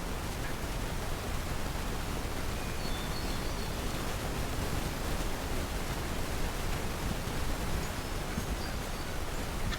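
Steady outdoor background noise with a flickering low rumble, and a few faint, short, high bird chirps.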